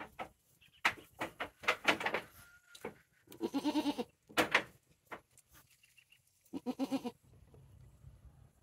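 Goats bleating: a quick run of short, sharp sounds, then two drawn-out bleats about three seconds apart.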